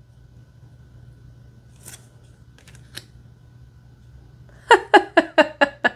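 Tarot cards handled with a few soft clicks as one card is moved off the front of the deck, over a faint low hum. Near the end comes a loud run of about six quick pitched pulses, a woman's short laugh.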